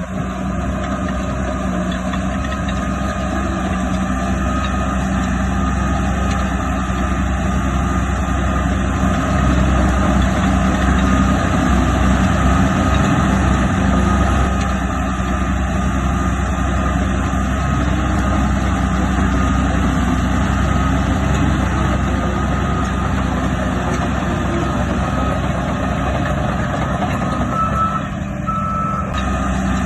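Heavy diesel earthmoving machinery running steadily, with a reversing alarm beeping, clearest near the end.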